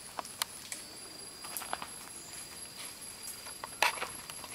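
Rainforest ambience: a steady high insect drone at two pitches, with scattered crackles and snaps of twigs and dry leaves, the loudest a brief crackling burst near the end.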